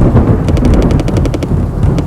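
Rapid machine-gun fire sound effect over a steady low rumble, the shots starting about half a second in.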